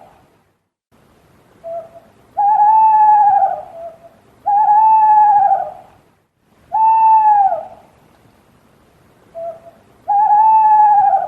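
An owl hooting: four long hoots about two seconds apart, each held at a level pitch and dropping a little at the end. Two of the hoots are led by a short, lower note.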